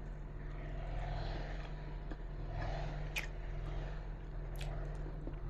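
Faint mouth sounds of a person biting into and chewing a piece of cooked jengkol, with a few small wet clicks about three and four and a half seconds in. A steady low hum runs underneath.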